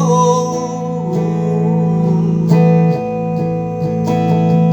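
Acoustic guitar strumming chords as accompaniment to a Portuguese worship hymn, with a few strokes that ring on between sung lines. A held sung note fades out right at the start.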